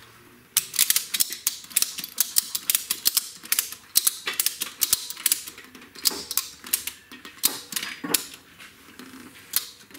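Ratchet strap buckle clicking as it is cranked in quick runs of sharp clicks, densest in the first half and thinning out later, taking up a strap that lifts a Kubota D1105 three-cylinder diesel engine into place.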